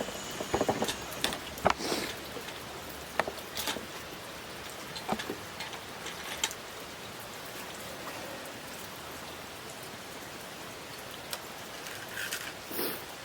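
Steady rain falling, with scattered sharp taps and clicks, several of them in the first two seconds.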